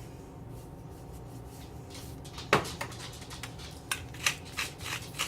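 Salt and pepper being added: a single click about halfway, then near the end a run of short rasping strokes, about three a second, over a low steady hum.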